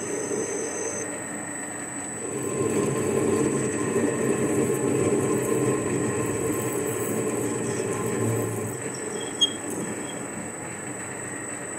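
Warco 280V metal lathe running with a cutting tool working a spinning steel hammer handle, the cutting noise louder from about two seconds in until about nine seconds, then a single sharp click.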